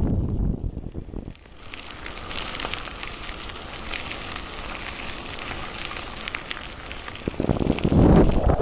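Wind buffeting the microphone as a low rumble, which drops away about a second and a half in, leaving a fainter crackling hiss with many small ticks; the rumble returns louder near the end.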